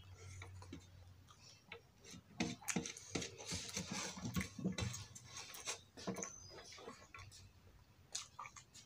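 Close-up eating sounds of rice and fish curry eaten by hand: a run of small clicks, smacks and chewing noises, busiest in the middle and thinning out near the end.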